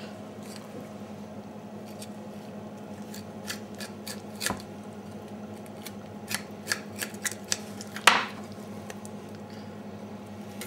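Hands and a knife handling raw poultry on a board: scattered soft clicks and taps, the loudest about eight seconds in, over a steady low hum.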